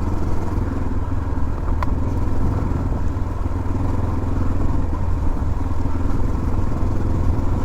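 Motorcycle engine running steadily while riding, a low even drone with a fine firing pulse. A single short click sounds about two seconds in.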